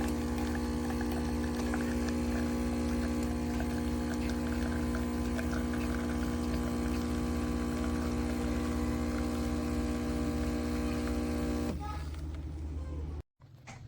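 QJA espresso machine's pump humming steadily as it pushes water, stopping near the end.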